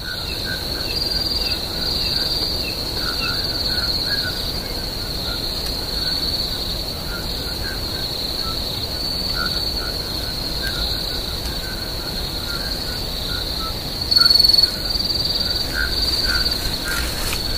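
Crickets chirring in a steady, continuous high trill, with faint short calls scattered beneath it. About fourteen seconds in, a louder chirr stands out for about half a second.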